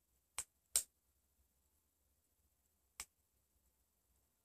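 Near silence broken by three short, sharp clicks: two close together about half a second in, the second the loudest, and one more about three seconds in.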